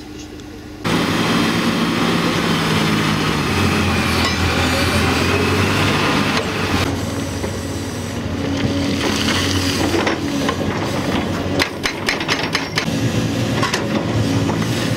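Tracked hydraulic excavator's diesel engine running under load as the bucket digs and scrapes through rocky soil, the sound starting abruptly about a second in. From about ten seconds in, rocks knock and clatter against the bucket several times.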